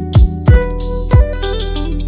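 Background music: an instrumental track with plucked guitar-like notes over a steady bass and drum beat.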